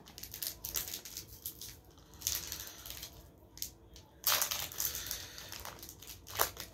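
Foil Pokémon booster pack wrapper crinkling and crackling as it is pulled open by hand, with a louder stretch of crinkling starting suddenly about four seconds in.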